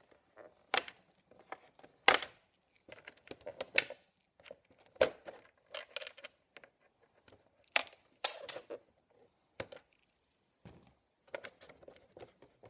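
Plastic body shell of a Hobao RC truck being handled: irregular clicks, taps and crinkles as it is pressed on and lifted, with the sharpest knocks about two, four and five seconds in.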